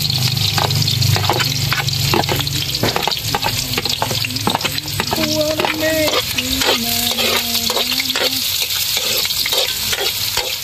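Garlic, ginger and shallots sizzling in hot oil in a wok, with a metal ladle stirring and scraping them across the pan in a run of short strokes.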